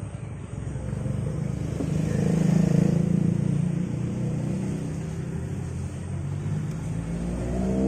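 Road traffic: a vehicle's engine swells to its loudest about three seconds in and fades, and near the end another engine accelerates, its pitch rising.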